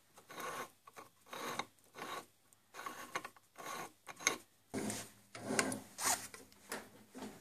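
Threaded metal cover being screwed by hand into a lathe headstock housing: the threads scrape gritty in short twisting strokes, about two a second. Near the end, louder scraping and sharp metal knocks from the headstock being handled on the lathe.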